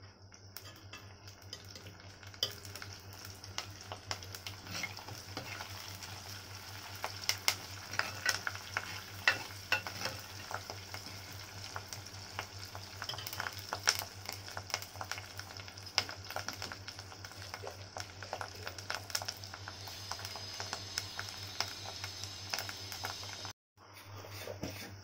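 Onion, dry red chillies and curry leaves frying in hot oil in a clay pot, a steady sizzle, with a steel spoon stirring and clicking against the pot. The sound cuts out for a moment near the end.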